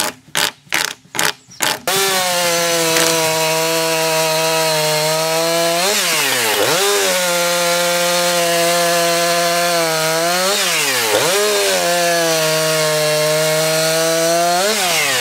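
A few clicks as the chain is worked round the bar by hand, then, from about two seconds in, a Husqvarna two-stroke chainsaw running at high revs and cutting through a log on a freshly sharpened chain. The revs drop and pick up again twice, about six and eleven seconds in.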